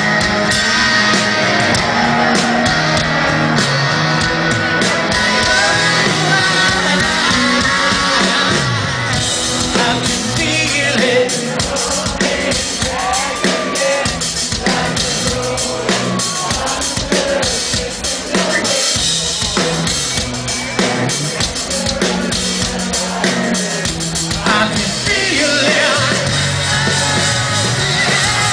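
Live rock band playing at full volume, with a drum kit keeping a steady beat under a sung vocal melody.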